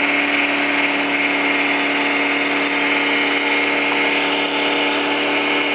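Off-road buggy's engine held at steady high revs during a burnout, with the noise of the rear tyres spinning in place on the dirt.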